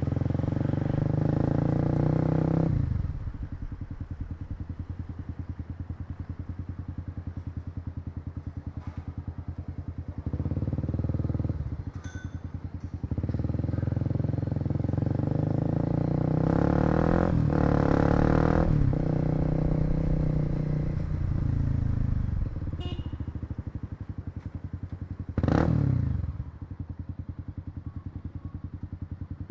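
Kawasaki KLX250's single-cylinder four-stroke engine pulling away and accelerating through the gears, then dropping back to a pulsing idle, several times over. Near the end there is a short loud burst.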